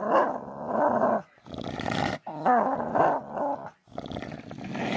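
A dog vocalising in four drawn-out bouts of about a second each, its pitch sliding up and down, with short breaks between them.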